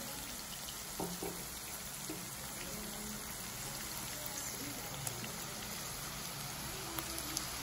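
Onions and garlic-chilli paste sizzling steadily in hot oil in a nonstick kadhai as they sauté, with a few faint ticks near the end.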